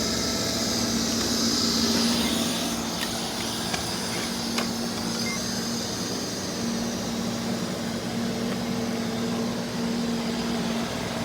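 Roomba robot vacuums running on carpet: a steady motor hum with a high whirring hiss, and a few light clicks.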